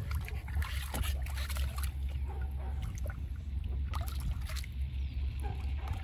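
Shallow water sloshing and splashing in a plastic kiddie pool as a dog steps about and noses at a leash in it, in irregular small splashes over a steady low rumble.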